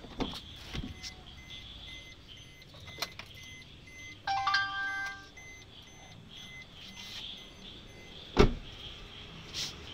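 Car handling sounds on a Maruti Suzuki Baleno: a few light clicks, a short electronic chime of about a second near the middle, then one heavy thump of the car door being shut near the end.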